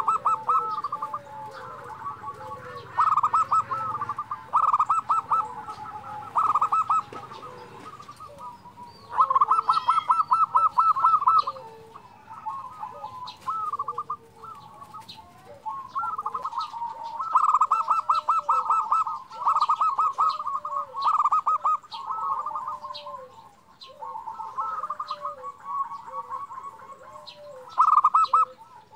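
Zebra dove (perkutut) singing repeatedly: bouts of fast rolling, staccato notes alternate with softer, bending coos, over and over. Small birds chirp faintly in the background.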